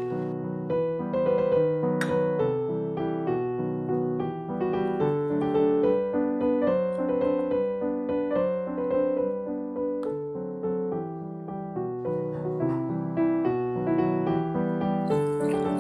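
Background solo piano music: a gentle melody of single notes over chords.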